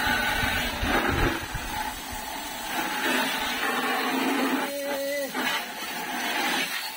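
Jet of water from a garden hose's brass spray nozzle hissing and splashing steadily onto stone paving. About five seconds in, a short pitched voice-like call sounds over the spray.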